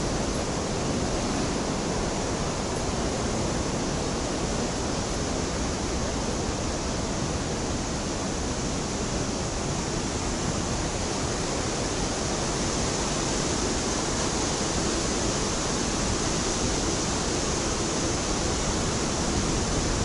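Steady rush of water flowing down the Cheonggyecheon stream's stone channel: an even, unbroken noise.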